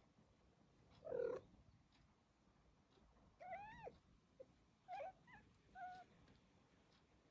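Tomcat chattering: a series of short chirping calls, some rising then falling in pitch, the loudest about a second in.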